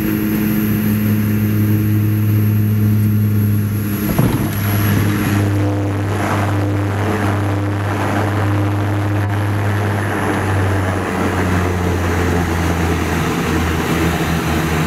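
Small turboprop plane's engines and propellers droning steadily, heard from inside the cabin during the landing at Lukla, with a thump about four seconds in as the wheels touch down. A louder rushing noise follows as the plane rolls and slows on the runway, and the drone drops in pitch near the end.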